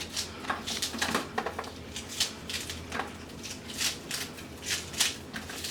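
Knife cutting fresh vegetables for a homemade spice mix, a string of short, irregular cuts and taps, several a second, over a steady low hum.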